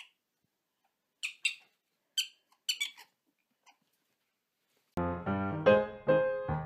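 Prairie dog giving a run of short, high-pitched chirps, about eight over four seconds, some in quick pairs. About five seconds in, piano music starts.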